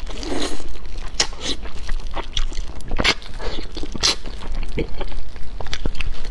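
Close-miked eating sounds: biting into and chewing pieces of braised fish, with irregular sharp clicks and wet mouth noises.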